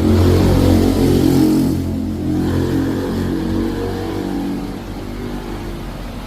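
A motor running with a steady low hum, loudest in the first couple of seconds and slowly easing off.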